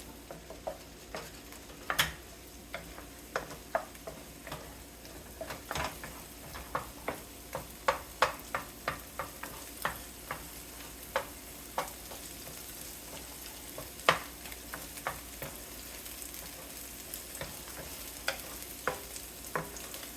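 Scrambled eggs and onions sizzling in oil in a pan on high heat, with a utensil clicking and scraping against the pan as they are stirred and broken up, about one or two clicks a second.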